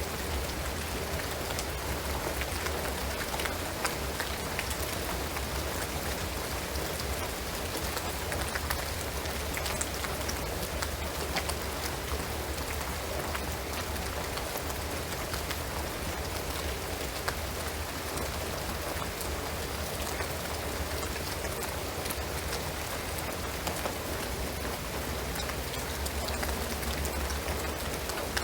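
Steady rain falling on a shingled roof and pine trees, a constant hiss dotted with many separate drops ticking.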